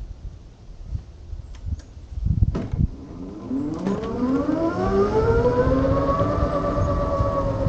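Velimotor VGX6 electric motorcycle's drive whining as it pulls away: a pitched whine that rises steadily with speed from about halfway in, then levels off and eases slightly near the end. A few knocks and low rumbles come before it.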